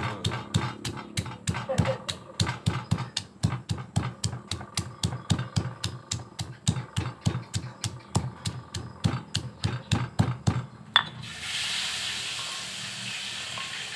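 Stone pestle pounding sliced lemongrass in a heavy stone mortar, a steady run of blows at about three to four a second that ends in one louder strike about eleven seconds in. After it a steady hiss takes over.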